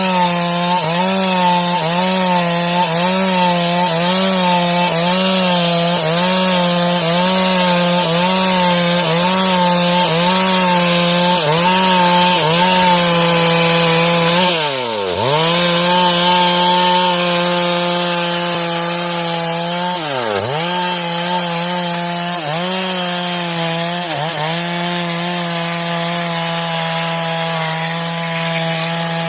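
Stihl MS 382 two-stroke chainsaw cutting dry wood at high revs. Its pitch sags briefly under load in a steady rhythm, a little faster than once a second. About halfway the revs drop sharply and climb back, and they dip deeply again a few seconds later.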